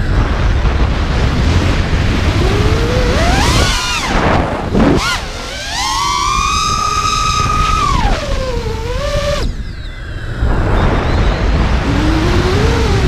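FPV quadcopter's brushless motors whining, the pitch gliding up and down with the throttle, over a heavy rumble of wind on the onboard microphone. Midway a high whine holds steady for a couple of seconds, then falls away.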